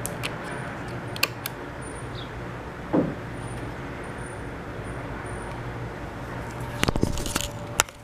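Sharp clicks from a hand working a touchpad wall light switch with a slide switch, a dull knock about three seconds in, and a cluster of clicks and rustling near the end, over a steady low hum.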